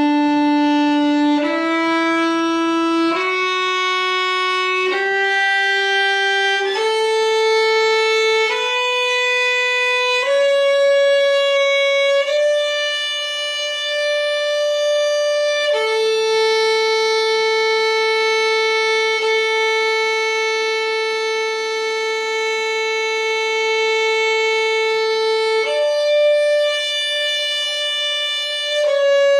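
Solo violin playing slow, evenly bowed long notes that climb step by step up a D major scale, about one note every second and a half to two seconds, then holds a single note for about ten seconds before moving on near the end.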